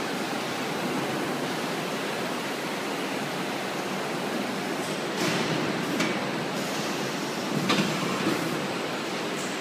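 Steady machine noise of a carton palletizer and its roller conveyor running, with a few short knocks about halfway through.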